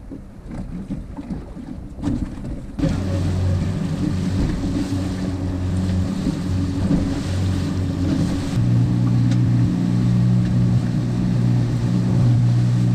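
Wind and water around a small boat, then about three seconds in a motorboat engine comes in, running steadily with the hull pushing through the water. Near nine seconds the engine note steps up in pitch and gets louder as the boat speeds up.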